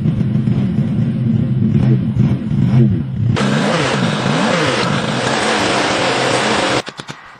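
A car engine running and being revved, its pitch rising and falling repeatedly. A rushing noise joins a few seconds in, and the sound cuts off abruptly near the end.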